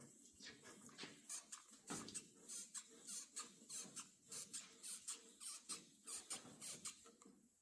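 1200-grit wet sandpaper being worked by hand back and forth over the painted hood of a 1972 Buick Centurion: quiet, rapid squeaky scrubbing strokes, about three to four a second, from about a second in until near the end. The paper is run with light pressure to flatten the paint for polishing.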